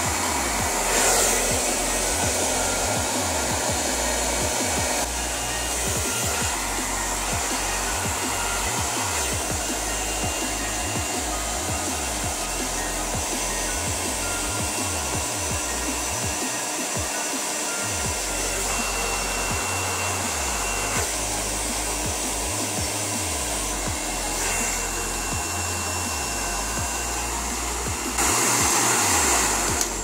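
Singer hand-held hair dryer blowing, its fan and heater running steadily. The sound steps up or down several times as its setting is switched, and is loudest in the last two seconds before it cuts off.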